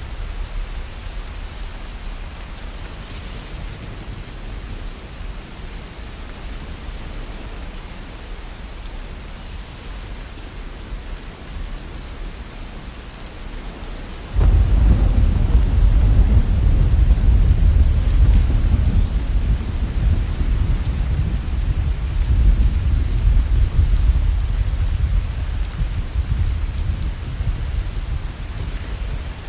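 Heavy rain falling steadily. About halfway through, a loud low rumble of thunder breaks in suddenly and slowly dies away over roughly ten seconds.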